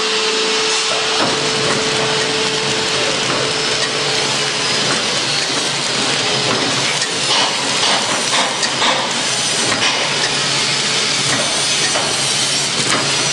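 Poster film-wrapping machine running: a steady, loud mechanical hiss and whir, with a steady hum for the first few seconds and scattered clicks and knocks from about seven seconds in.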